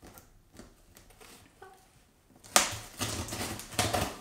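Packing tape on a cardboard box being cut open. A sharp click comes about two and a half seconds in, then a quick run of scratchy strokes.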